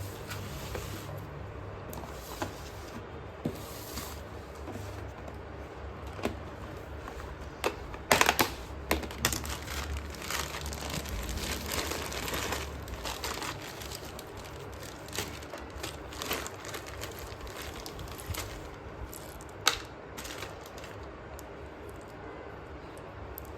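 Slate pencils being crunched close to the microphone: sharp cracks and crackling, thickest from about eight to thirteen seconds in, with single snaps scattered either side.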